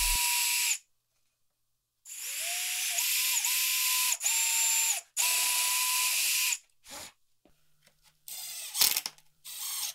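Cordless drill with a countersink bit boring countersunk pilot holes in cedar boards: the motor spins up and runs in three stretches of a few seconds each, its whine dipping briefly as the bit bites. In the last few seconds, a few short, quieter bursts as a cordless driver sets a screw.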